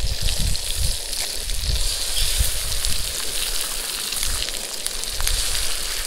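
Sausages and eggs sizzling in hot fat in a cast iron skillet, a steady frying hiss with small pops and crackles; eggs are cracked into the pan during it.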